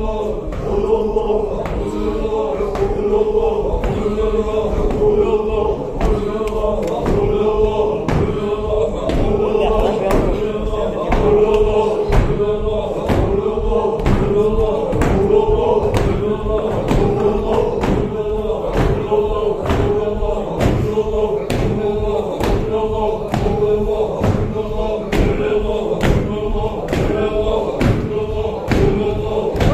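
Ingush Sufi zikr: a group chanting together in unison, held lines repeating, with a sharp rhythmic beat about one and a half times a second.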